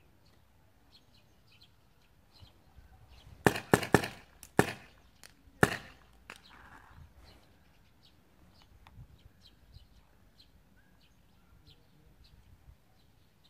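Paintball markers firing: a quick burst of several sharp pops about three and a half seconds in, then a few single shots over the next two seconds. Birds chirp faintly throughout.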